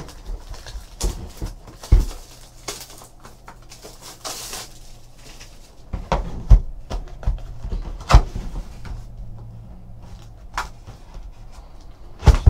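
Cardboard trading-card boxes being handled as a sealed hobby box is opened and its mini boxes lifted out: scraping, rustling and sliding, with several sharp knocks of cardboard set down on the desk.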